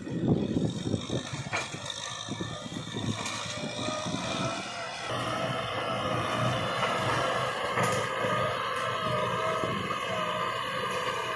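Farm tractor's diesel engine running steadily under load while tilling dry, cloddy ground with a rear implement. Through the second half a wavering whine rides on top of the engine note.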